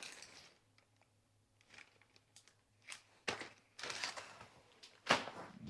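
Rummaging through a bag of rubber brake-lever hoods: a few light clicks and rustles, with a longer rustle about four seconds in and a sharper one near the end.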